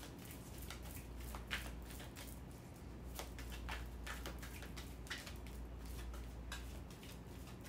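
Tarot cards being shuffled by hand: soft, irregular clicks and rustles over a low steady hum.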